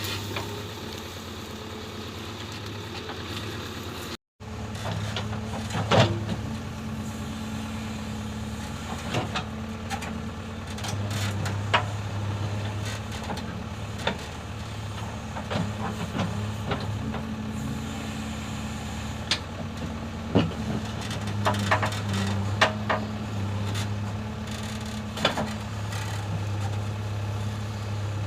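JCB 3DX backhoe loader's diesel engine running steadily, its note swelling and easing with the work. Scattered sharp knocks and clanks come through over it.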